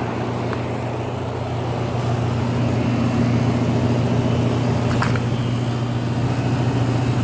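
2007 Rheem Classic 3-ton central air conditioner condensing unit running: a steady low hum from the compressor under the rushing air of the condenser fan, growing a little louder about two seconds in.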